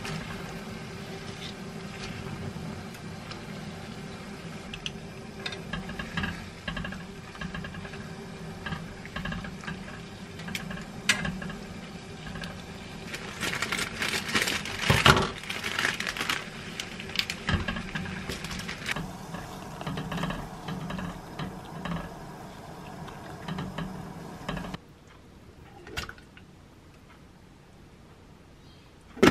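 Water bubbling in a pot on a gas stove under a steady low hum, with clinks of the pot and crackling, crinkly handling that gets busier and louder partway through. Near the end the sound drops to a quiet counter with one knock.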